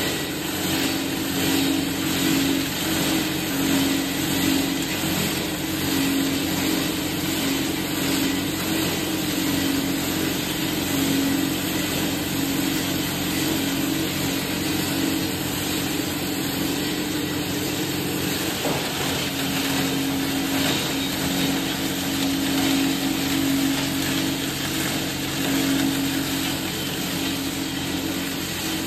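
Plastic scrap grinder running steadily: a loud, even hum from the machine with a constant noisy grinding as plastic scrap is fed through its cutters.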